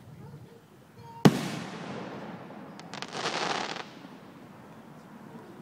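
Aerial firework shell bursting with one sharp bang about a second in, its boom trailing away; about two seconds later a second, noisier firework burst hisses for under a second.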